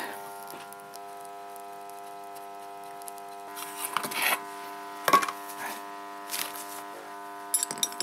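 A steady electrical hum with several short knocks and scrapes over it. The loudest is a sharp knock about five seconds in, as a metal rod is worked against a freshly cast aluminium lump and its mould.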